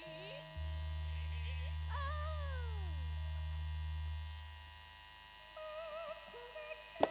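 Campursari band's amplified sound in a lull between phrases: a low steady tone comes in about half a second in, holds for about three and a half seconds and then fades out, with a single note sliding steeply down in pitch around two seconds in. Faint wavering melody notes return near the end.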